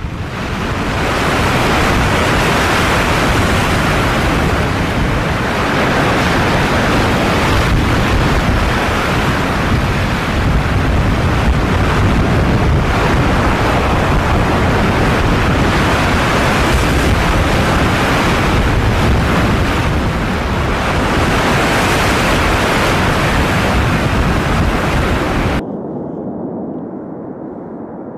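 A loud, steady rushing noise that cuts off abruptly about 26 seconds in, leaving a quieter, duller rumble.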